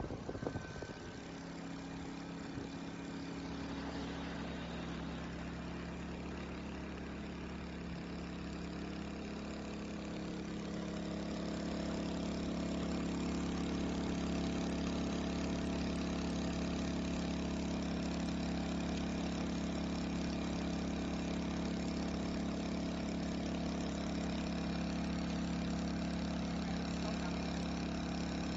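HK2000is inverter generator's small engine running steadily, with a brief clatter right at the start. About ten to twelve seconds in it gets louder and its note shifts up, then holds steady.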